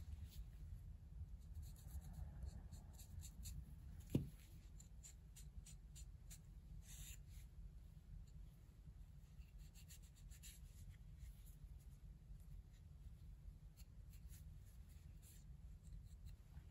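Faint rubbing and light scratchy ticks from hand work on a newspaper-covered table, with one soft knock about four seconds in, over a low steady hum.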